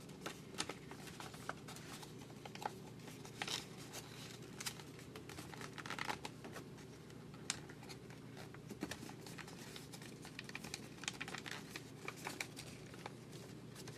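Faint paper rustling and crinkling in scattered short ticks as hands fold and tuck the flaps of a letter-size paper origami box, over a steady low hum.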